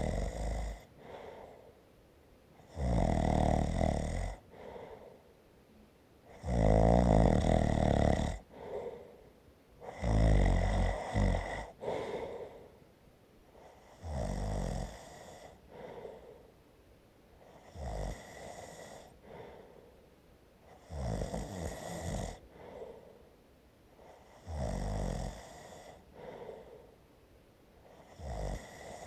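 A person snoring in slow, regular breaths, about one snore every three and a half seconds, each followed by a softer exhale. The snores are loudest in the first half.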